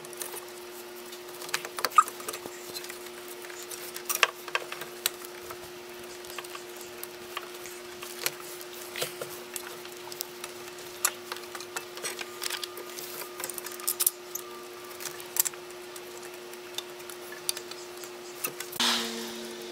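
Scattered metal clicks and clinks of hand tools and an alternator being fitted into its bracket in a car engine bay, over a steady low hum. A louder, brief scraping rush comes near the end.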